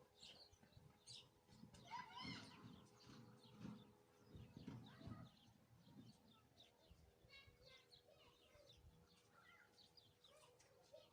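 Small birds chirping faintly, many short high chirps scattered throughout, over a faint steady hum.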